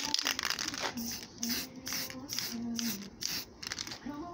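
Spray paint hissing in a string of bursts: one longer spray at the start, then about six short ones, while white paint goes onto a mountain bike frame. Music plays faintly underneath.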